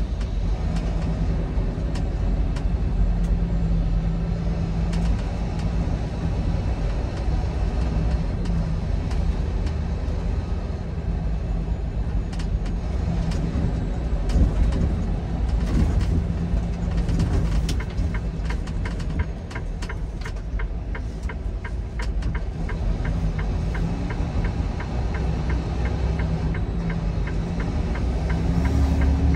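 Semi-truck on the move: steady diesel engine and road rumble. A run of even ticks, about three a second, comes in for the last third, and the engine note rises near the end.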